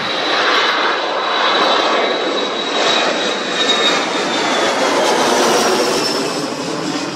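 Boeing 737's twin CFM56 turbofan engines at takeoff power as the jet climbs out overhead: a loud, steady jet noise with a thin high whine that drops slightly in pitch after about four seconds.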